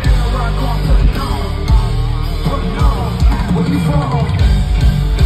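Live rock band playing loudly through a concert PA, with sung vocals over heavy bass and drums, heard from the audience.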